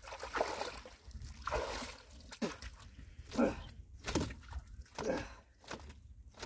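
Shallow pond water sloshing and trickling in soft, irregular bursts, stirred by a man wading beside a wooden boat.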